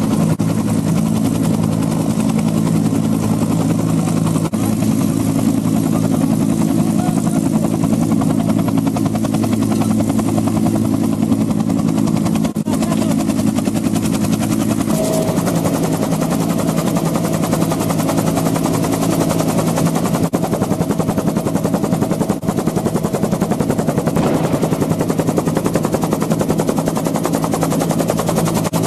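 Helicopter running steadily, a constant low hum with several even tones that shift slightly about halfway through.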